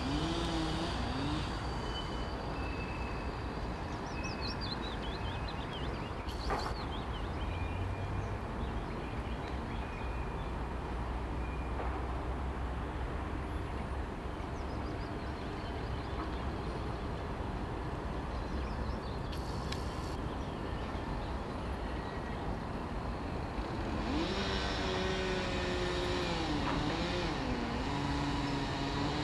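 Steady hum of distant road traffic heard from high above, with a few high chirps a few seconds in. Near the end a single vehicle engine comes up louder, its pitch rising and dipping.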